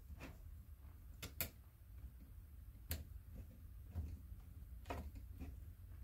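Light, irregular clicks of a hand screwdriver working a shock mounting screw on an RC truck (Traxxas Slash 4x4), small metal-on-plastic ticks, the loudest a pair about a second and a half in. A low steady hum lies underneath.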